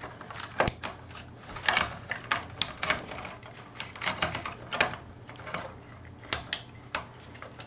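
Plastic parts of a transforming robot toy figure clicking and snapping as they are handled and pegged into place: irregular sharp clicks, two or three a second.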